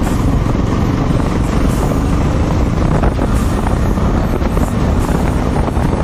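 Yezdi motorcycle's single-cylinder engine running steadily at cruising speed, about 65 km/h, mixed with wind rushing over the microphone.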